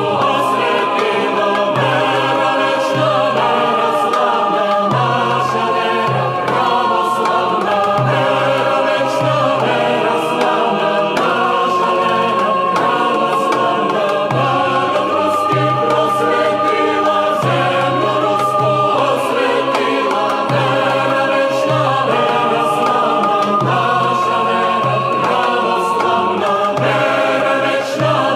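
Choral music: a choir singing slow, held chords over a steady low drone.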